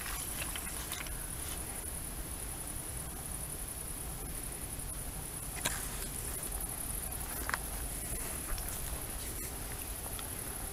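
Insects chirping in a steady high trill, with a few faint clicks in the second half.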